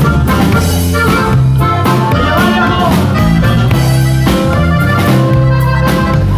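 Upbeat band music with a steady drum beat, bass and melody instruments.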